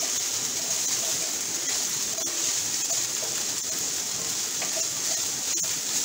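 Chopped onions sizzling steadily in a seasoned cast iron skillet, softening over medium-low heat, with a wooden spoon stirring them and a faint scrape or two.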